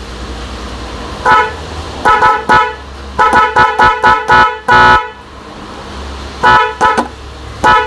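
Pair of 12-volt snail (spiral) horns being tested with about fifteen short honks: a few single toots, a rapid string of quick beeps in the middle, and one longer blast about five seconds in. A steady low hum runs underneath between the honks.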